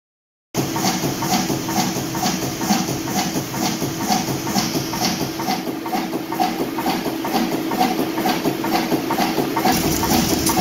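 1928 Crossley horizontal diesel engine running with a regular beat of about two a second over a steady hum, starting about half a second in.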